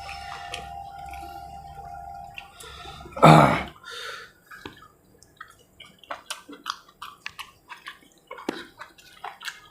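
Close-miked wet chewing and lip-smacking of a person eating fried chicken gizzard and liver: many short smacks and clicks, with one louder burst a little after three seconds in. A steady low hum runs underneath and stops about three and a half seconds in.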